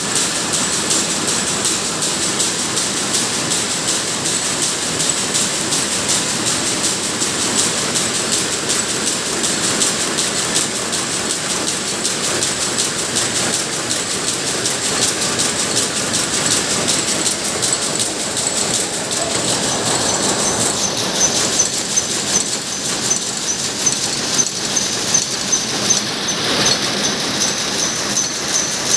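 Rapier loom with jacquard running at speed while weaving a saree, a steady, loud, rapid mechanical clatter. About two-thirds of the way in, a high pulsing tone joins the clatter.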